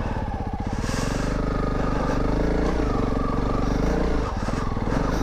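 Honda CRF300 Rally's single-cylinder engine running at low revs in first gear, pulling at a steady low rumble. The revs lift slightly about a second in and dip briefly about four seconds in.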